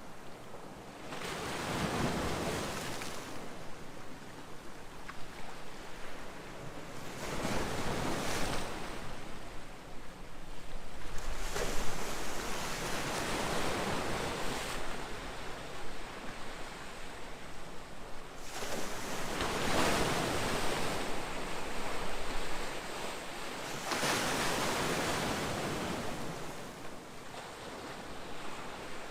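Calm sea waves breaking and washing in: about five surges of surf, each swelling up and ebbing away over several seconds.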